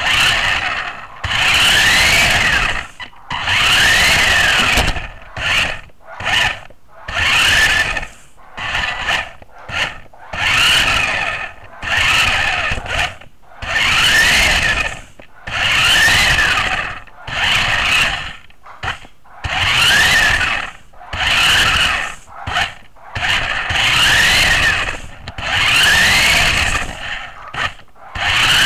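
Brushed electric drive motors and gearbox of a converted toy stunt RC car whining in short throttle bursts, about one every two seconds, the pitch rising and falling with each burst.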